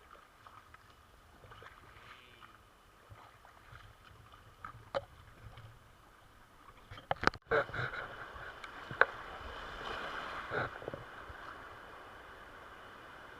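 River water running around a raft on a white-water river, with scattered sharp knocks and splashes. The rushing water gets louder about seven seconds in, after a brief break in the sound.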